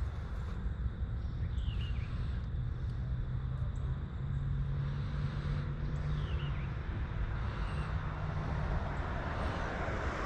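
Outdoor background of low rumble with the steady hum of a vehicle engine in the middle stretch, and two short bird chirps.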